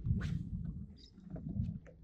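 Wind rumbling on the microphone of an open boat, with a quick swish of a fishing rod being cast just after the start and a second gust of rumble about one and a half seconds in.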